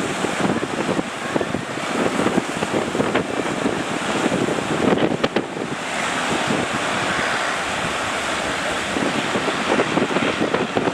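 Strong wind buffeting the microphone over the rush of breaking surf, in uneven gusts with a few sharp knocks about five seconds in.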